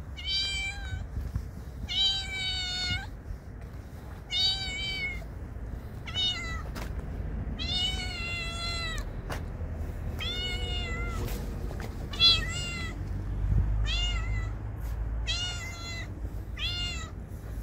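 A stray cat meowing over and over: about ten high-pitched meows, each half a second to a second long, a few seconds apart. These are the begging calls of a hungry cat waiting to be fed.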